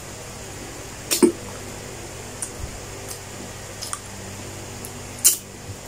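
Close-up eating sounds of a person biting and chewing salted egg fried chicken held in his hand: a handful of short, sharp mouth clicks and smacks, the loudest about a second in and near the end, over a steady low hum.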